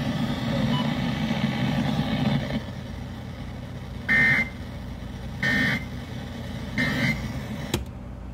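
Emergency Alert System end-of-message code: three short, identical buzzy data bursts about a second and a half apart, marking the end of the tornado warning broadcast. A steady noisy hum comes before them, and a sharp click follows near the end.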